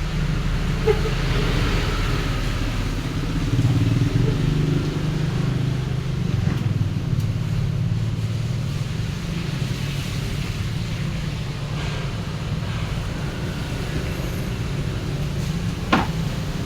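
A motor vehicle's engine running with a steady low drone, the pitch shifting a little about four seconds in. A single sharp knock comes near the end.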